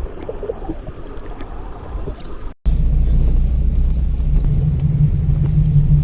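A noisy rumble, then a sudden cut about two and a half seconds in to a vehicle engine running steadily with a loud, even low drone.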